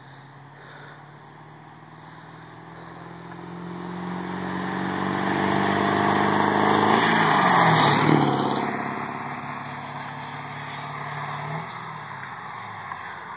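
Ford F-250's 7.3 Powerstroke turbo-diesel V8 driving past with its turbo whistle. The engine and whistle grow louder as the truck approaches and drop in pitch as it passes about eight seconds in, then fade away.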